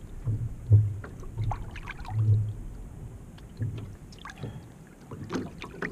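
Outrigger canoe being paddled: the paddle splashing in and out of the water and water washing along the hull, with irregular dull low thumps.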